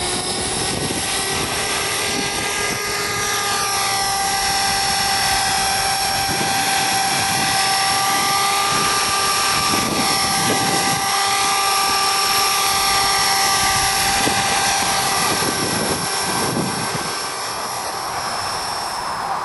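Belt CP radio-controlled helicopter with a scale MD500 body in flight: its electric motor and drivetrain give a steady high whine of several held tones over the whir of the rotor blades. It grows a little louder midway and eases off near the end.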